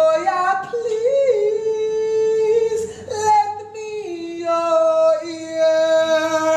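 A woman singing unaccompanied, holding long sustained notes that step between a few pitches, with a brief warble about a second in.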